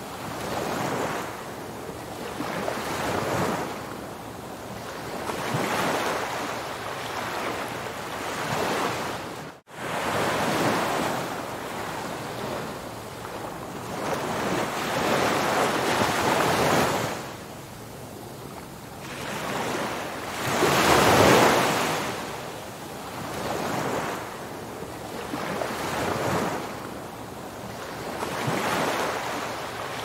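Ocean surf: waves surging and washing in, swelling and ebbing every few seconds, the loudest wave about two-thirds of the way through. A momentary dropout breaks the sound about a third of the way in.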